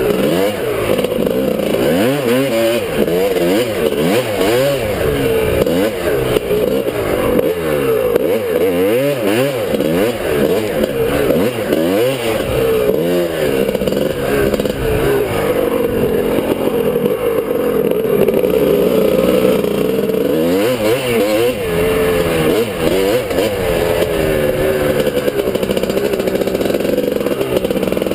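A 1997 Suzuki RM250's two-stroke single-cylinder engine being ridden hard, its revs rising and falling every second or two through throttle changes and gear shifts.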